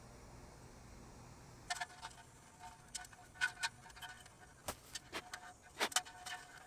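Metal bar handles clinking and tapping against the metal shell of a mini keg as they are fitted into its side: a scatter of sharp metallic clicks with a brief ring, starting a couple of seconds in. The loudest clicks come near the end.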